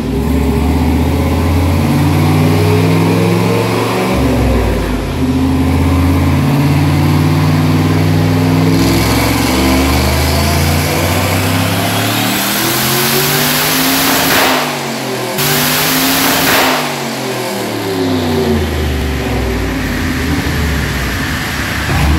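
Turbocharged, carbureted 4.8-litre LS V8 pulling on a chassis dyno: the engine note climbs steadily as revs rise, and a loud rushing hiss builds from about halfway in. After a couple of brief dips, the revs fall away as the pull winds down.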